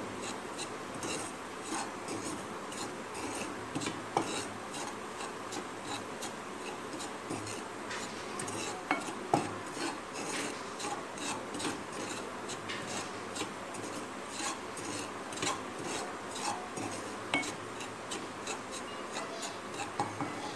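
Wooden spatula stirring and scraping raw rice flour around a pan as the flour dry-roasts: a steady run of short, irregular scrapes, with one sharper knock of the spatula on the pan about nine seconds in.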